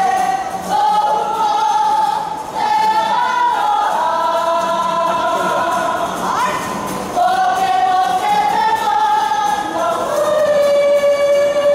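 A Māori cultural group singing a song together in chorus, on long held notes that step from one pitch to the next.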